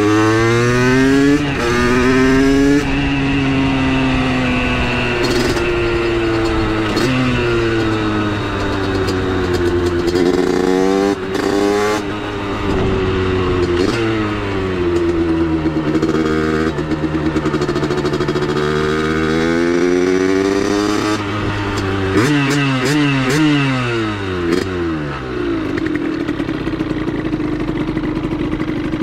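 Two-stroke 70cc Minarelli AM6 engine of a Vent DR70 supermoto, breathing through a Giannelli expansion chamber and DBR silencer, revving up and dropping back repeatedly as it is ridden through the gears. Late on the pitch falls steeply as the bike slows, then holds a steady tone.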